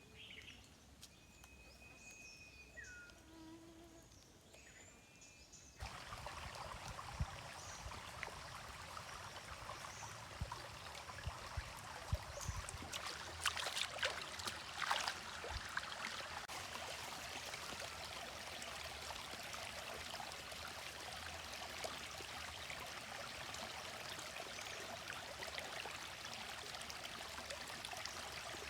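Faint bird chirps and whistles at first. From about six seconds in, a steady rush of flowing stream water, with a few sharp knocks around the middle.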